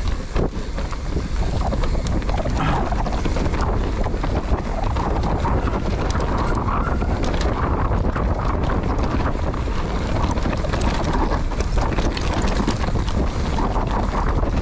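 Mountain bike descending a dirt trail: wind buffeting the camera microphone and tyres rolling over the ground make a steady rush, with many short clicks and knocks from the bike jolting over bumps.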